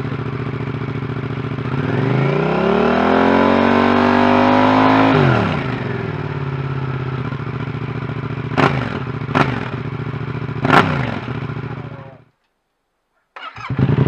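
Yamaha MT-07's parallel-twin engine through a Scorpion carbon slip-on exhaust with its baffle fitted, idling, then revved up and held for about three seconds before dropping back to idle, followed by three quick throttle blips. The sound cuts out about a second and a half before the end, then the idle returns louder with the baffle removed.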